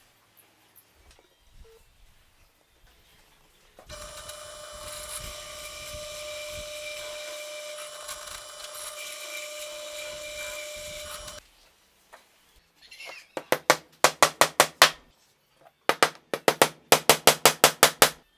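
Benchtop drill press running and boring into a laminated plywood block, a steady motor hum with the bit cutting, for about seven seconds. After a short pause come two quick runs of hammer blows driving a wooden dowel into the drilled hole, each blow a sharp knock, several a second.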